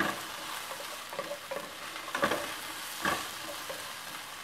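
Chopped vegetables sizzling in oil in a hot skillet while a wooden spatula stirs them, scraping across the pan about four times.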